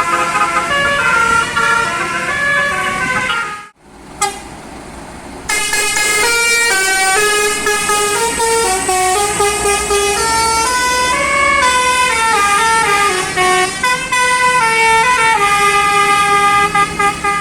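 Bus 'telolet' air horn, a set of several horn trumpets, playing a tune of stepping notes. It breaks off sharply about four seconds in, goes quiet for about a second and a half, then plays a run of changing notes to the end.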